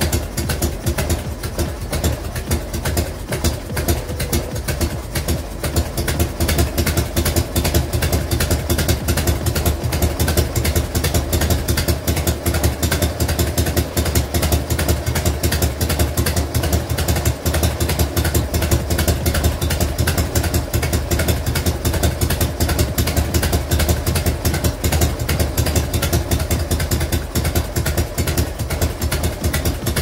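1993 Harley-Davidson Fat Boy's air-cooled Evolution V-twin idling steadily with its loping 'potato-potato' beat, a rapid run of uneven exhaust pulses.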